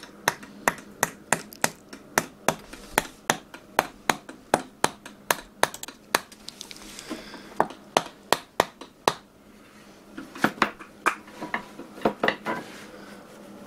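A wooden wedge being driven into the saw cut at the top of a new wooden hammer handle, seating the handle in a ball peen hammer head. It makes a quick series of sharp knocks, about two or three a second, with two short pauses.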